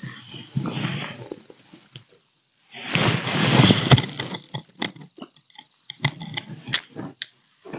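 Close handling noise of fishing tackle: rough rustling and grinding as a rod and reel are worked, loudest in a stretch around the middle, followed by a run of short clicks and knocks.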